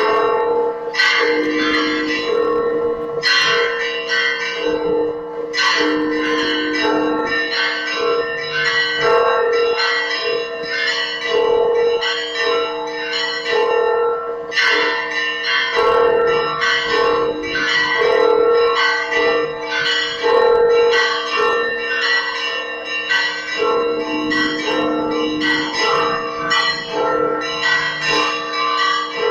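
Church bells of the Holy Sepulchre ringing for the evening service. Several bells of different pitches are struck in quick succession in a continuous peal, their tones ringing on between strikes.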